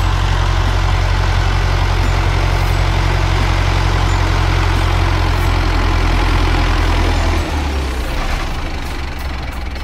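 Farm tractor's diesel engine running steadily at working revs while its front loader carries a heavy winch; about seven seconds in the engine drops back and runs quieter.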